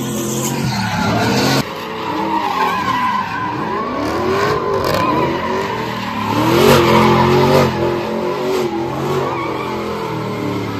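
Pickup truck doing a burnout: tyres squealing steadily while the engine revs up and down again and again as it spins donuts. The sound changes abruptly about a second and a half in.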